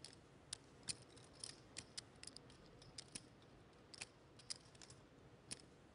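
Faint, sharp, irregular clicks of poker chips being handled at the table, about a dozen over a few seconds.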